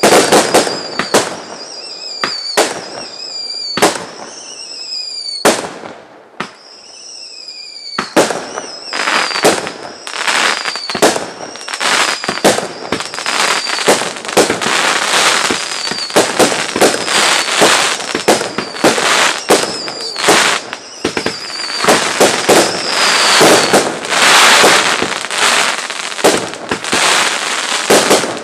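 Aerial fireworks going off in a fast barrage: sharp bangs, many with whistles that fall in pitch, and from about halfway on a dense crackle that barely lets up.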